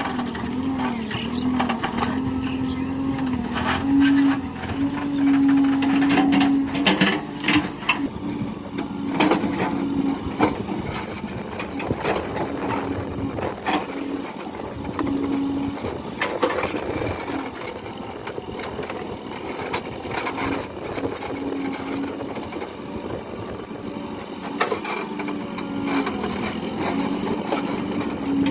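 JCB 3CX backhoe loader working its backhoe: the diesel engine runs with a steady drone that wavers a little in pitch, while the bucket digging into the soil and the boom linkage give repeated clanks and knocks.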